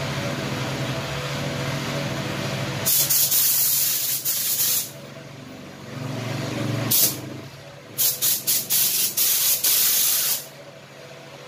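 Sagola Jet 5000 spray gun hissing in bursts as the trigger is pulled to lay clear coat. There is a two-second pass about three seconds in and a short burst near seven seconds, then a string of quick trigger pulses running into a longer pass. A steady motor hum sits underneath between passes.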